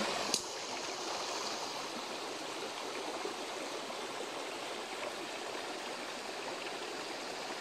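Small rocky forest creek flowing over stones: a steady rush of running water, with a single short click just after it starts.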